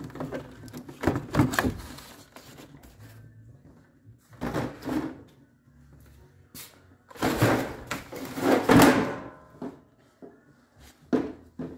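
Handling noise as an inner door panel and its plastic sheet are pulled off a truck door: several irregular bursts of scraping and rustling with light knocks, loudest about seven to nine seconds in.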